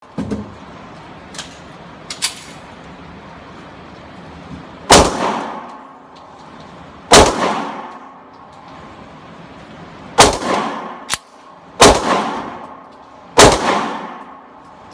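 Five pistol shots from a Magnaported 3.5-inch Kimber Raptor Custom 1911, spaced about one and a half to three seconds apart. Each shot rings on for about a second in an indoor range, and a fainter sharp crack falls between the third and fourth shots.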